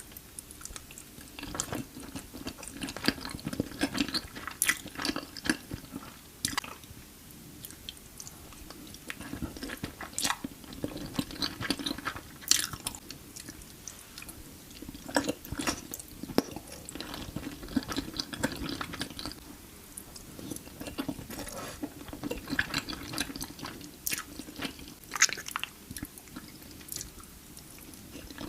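Close-miked chewing of creamy Alfredo pasta, with wet clicks and smacks coming in clusters.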